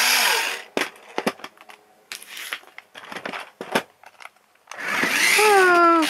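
New Bright toy RC car's electric drive motor whirring as its wheels spin freely, in short bursts worked from the remote: a brief spin-up at the start, then a longer run near the end. Between them come plastic clicks and knocks from handling the car and controller.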